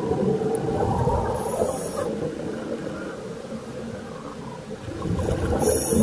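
Underwater sound of scuba divers on regulators: a continuous low rumble, with two bursts of exhaled bubbles, one about a second and a half in and one near the end.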